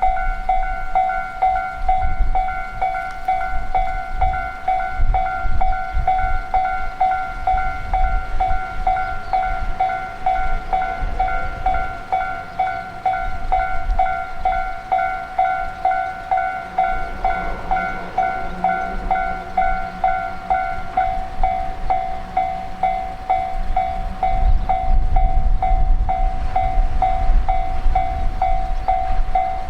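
Japanese railroad crossing warning bell ringing its fast, even "kan-kan" clang, with a rumbling train passing over the rails. One of the bell's tones drops out about two-thirds of the way through, and the rumble swells again near the end.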